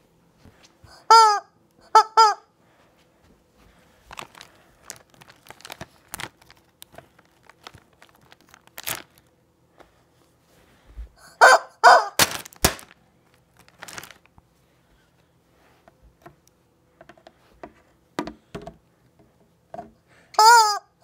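Yellow rubber chicken toy squeezed, letting out short squawks: two about a second in, a quick run of three or four midway, and one more near the end, with faint handling rustles and clicks between them.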